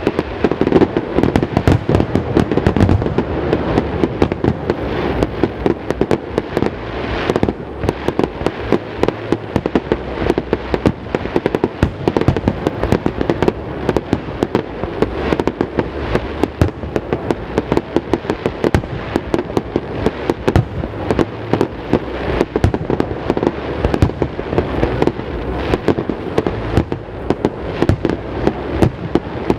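Rapid-fire fireworks barrage: shells bursting in quick succession, a dense, unbroken run of booms and crackles.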